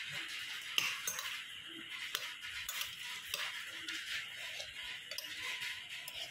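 A cat eating fish bones with its head inside a cut-open plastic bottle: irregular small crunches, clicks and crackles of bone and thin plastic.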